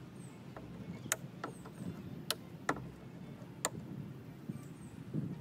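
Hand wire cutters snipping off nail points that poke through a wooden board: a string of sharp clicks at irregular spacing, about one a second.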